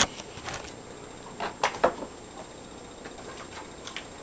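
A few short clicks and knocks from a pellet rifle being handled, bunched about a second and a half in, with fainter ticks near the end.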